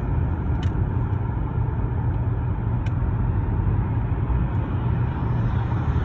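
Steady road noise inside a car driving on a highway: a low tyre and engine rumble.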